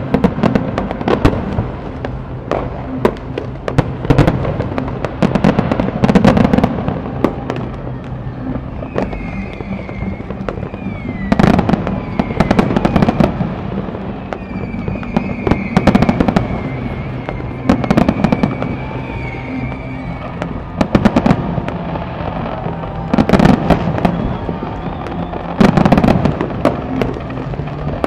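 Fireworks display: aerial shells bursting in a string of loud bangs a few seconds apart, with crackle between them. Music with sustained low notes plays underneath.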